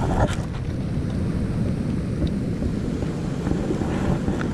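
Wind rumbling on the microphone over the sea's surf, a steady low noise, with a couple of faint clicks near the start and near the end.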